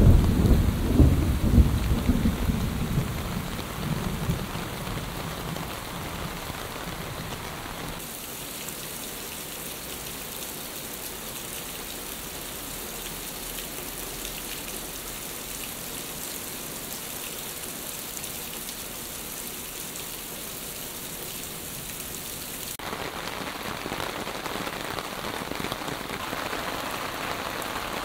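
Thunder rumbling over steady monsoon rain for the first few seconds, then heavy rain alone. In the middle the rain turns to a brighter, hissing stream pouring off a roof edge, and near the end it falls on standing water.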